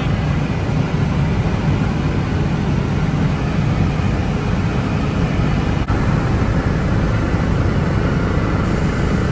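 Helicopter engine and rotor noise heard from inside the cabin in flight: a steady, loud, low-heavy running sound.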